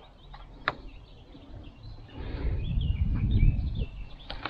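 Small birds chirping in short calls outdoors, with a low rumbling noise that swells from about two seconds in and a single click near the start.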